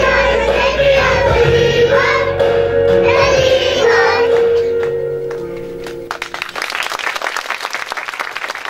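Music with children singing, which fades out about six seconds in; then an audience starts clapping.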